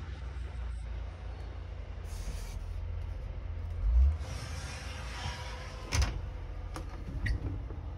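Wooden sliding bathroom door in a truck camper being pushed open along its track: a thump about halfway in, a short scraping slide, then a sharp click as it stops, followed by a couple of lighter knocks. A steady low rumble runs underneath.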